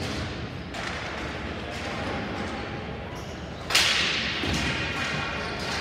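Ball hockey play in an echoing indoor rink, with a steady background of play and hall noise. About two-thirds of the way in comes one loud, sharp crack of a hard hit, stick or ball striking, that rings on in the hall.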